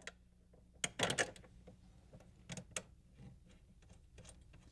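Scattered small metal clicks and clinks as a steel bracket and its bolt are handled and fitted against a strut, with the loudest cluster of knocks about a second in.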